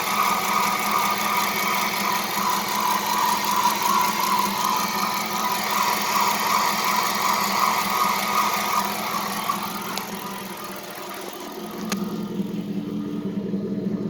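Dodge Charger's 5.7 Hemi V8 idling with a steady high squeal from a pulley on the newly fitted serpentine belt, which the owner had set too tight. The squeal fades out about ten seconds in, and the running sound changes after that, with a few light clicks near the end.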